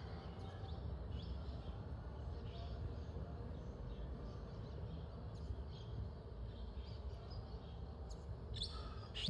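Faint outdoor ambience: scattered short bird chirps over a steady low rumble, with a few light clicks near the end.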